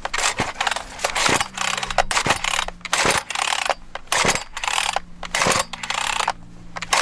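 Chainsaw recoil starter being yanked over and over, about one rasping pull a second, the engine not catching: the choke has been overlooked.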